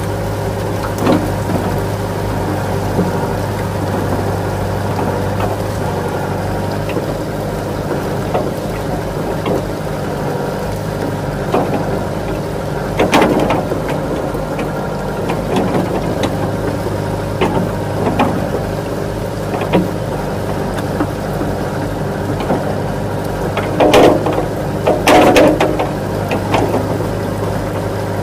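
Steady engine-like hum, with scattered short knocks and clatters over it. The loudest clatters come about halfway through and again near the end.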